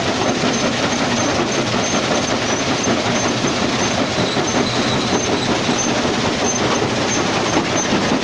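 Heavy machinery running with a loud, steady clattering rattle.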